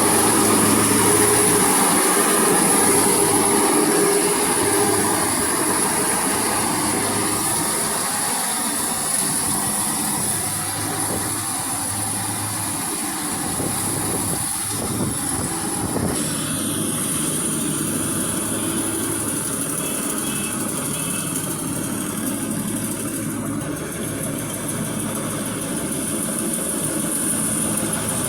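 Maxxi J rice combine harvester running steadily as it works, its engine hum under a steady high-pitched whine, with a shift in the sound about halfway through.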